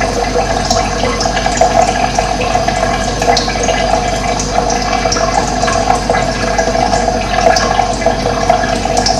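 Steady running water, with brief high bird chirps breaking in now and then.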